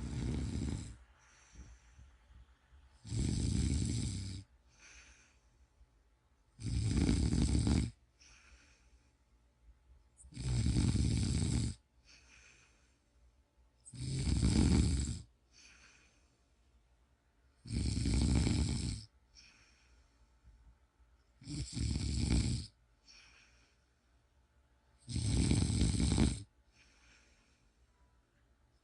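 A person snoring in a slow, regular rhythm: a loud snore about every three and a half seconds, each lasting over a second, with soft breathing between snores.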